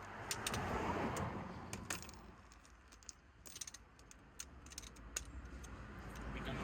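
Scattered metallic clicks and clinks of hand tools as a half-inch ratchet and its sockets are handled and a deep socket is swapped on, with some rustling.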